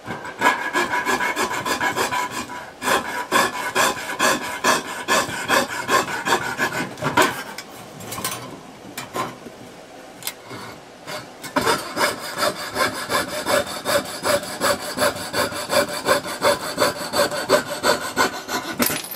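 Jeweller's piercing saw with a fine blade cutting thin brass sheet in quick, even back-and-forth strokes, about two to three a second, cutting out a window opening between drilled corner holes. The strokes grow quieter for a few seconds in the middle, then pick up again.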